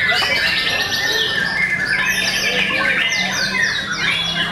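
Several caged white-rumped shamas (murai batu) singing at once: a dense chorus of overlapping whistled phrases and fast repeated sweeping notes, with no pause.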